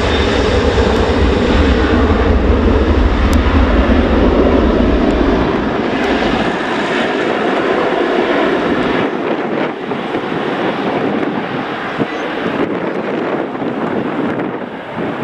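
Airliner's engines rumbling loud and deep as it passes, then fading away from about six seconds in, the deep rumble gone by about nine seconds.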